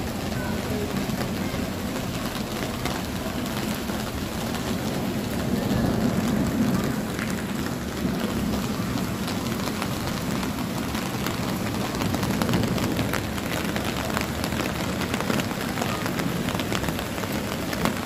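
Steady heavy rainfall, a dense hiss with many small drop ticks. A low thunder rumble swells beneath it about six seconds in and again around twelve seconds.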